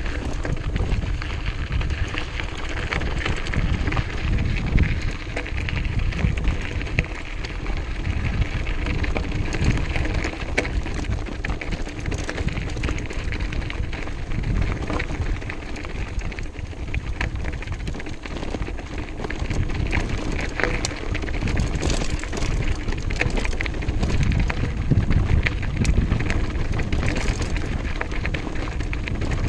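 Mountain bike tyres rolling fast over a loose gravel track, giving a continuous crackling crunch with small rattles from the bike, over a low rumble of wind on the microphone.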